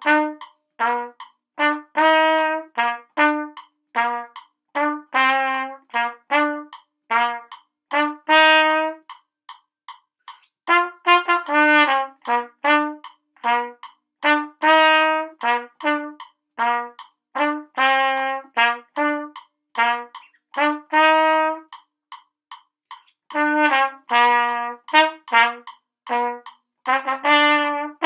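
Solo trumpet playing a simple band melody in short, separated notes low in its range, about two notes a second, with two brief rests partway through.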